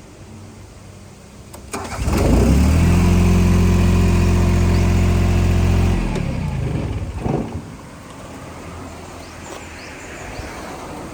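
Yanmar YB10 crawler backhoe's diesel engine starting about two seconds in and running at a steady speed for about three seconds. It then cuts off and winds down.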